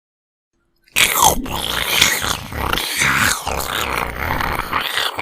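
A 'sickly demonic' creature sound effect starts abruptly about a second in, after dead silence. It is a loud, harsh, rasping noise across the whole range, with swooping pitch sweeps running through it, and it carries on unbroken.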